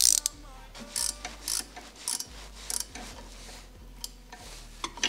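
Hand ratchet wrench clicking in short bursts, about five swings, as a bolt on the car's underside is turned.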